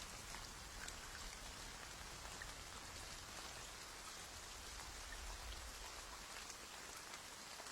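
Faint, steady rain-like hiss with scattered light drop ticks.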